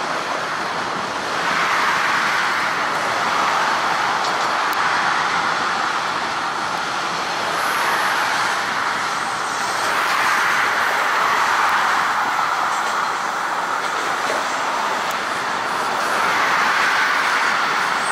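Toronto Rocket subway trains running on open-air track, the steady noise of their wheels on the rails swelling and easing as two trains pass each other in opposite directions.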